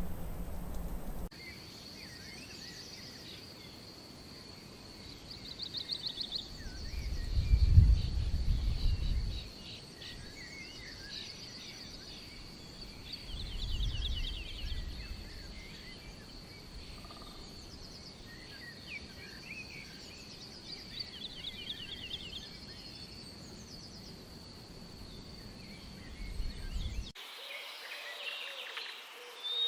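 Outdoor nature ambience: many small birds chirping and trilling over a steady high insect drone. It is broken twice by spells of low rumbling.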